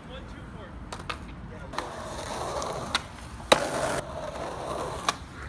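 Skateboard rolling on a concrete sidewalk: a steady rolling noise from the wheels, a few sharp clicks, and one loud sharp clack of the board about three and a half seconds in.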